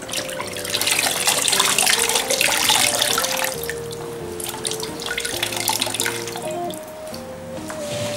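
Water sloshing and splashing as dye-soaked tie-dye fabric is squeezed and rinsed by gloved hands in a plastic bucket, loudest in the first half. Background music with a slow melody plays underneath.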